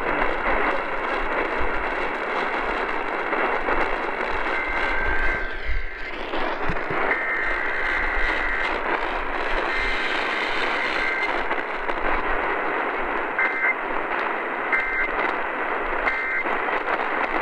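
AM radio tuned to a weak KDKA broadcast: heavy static and hiss. Through it come Emergency Alert System data bursts, a two-tone digital screech heard three times for about a second or so each, then three short bursts near the end. The signal is really, really bad, so the alert barely comes through.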